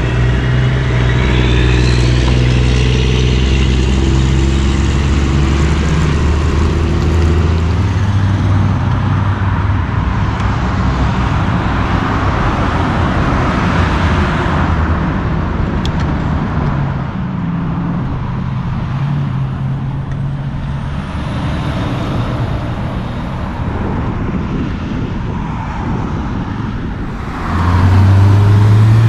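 A diesel semi truck's engine running steadily as the truck pulls away; after about eight seconds its note gives way to steady road traffic, with cars and a tanker truck going by. Near the end a louder engine sound comes in suddenly.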